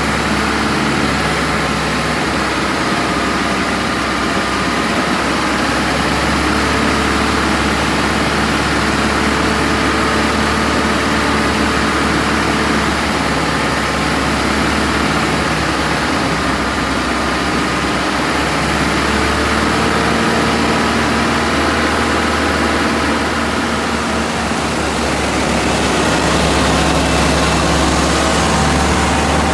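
Heavy machine engine running steadily, its pitch wavering slightly.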